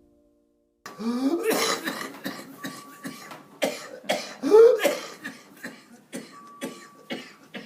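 Whooping cough (pertussis) coughing fit: runs of rapid, short coughs, twice broken by a rising, high-pitched whooping in-breath, the characteristic sign of whooping cough.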